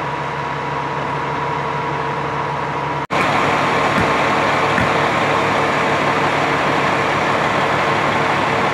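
Fire ladder truck's diesel engine idling with a steady hum. It cuts out for an instant about three seconds in, then comes back louder and closer.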